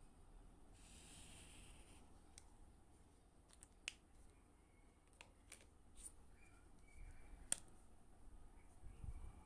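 Faint scattered clicks and taps of stationery and packaging being handled, with a short rustle about a second in and the sharpest click about seven and a half seconds in.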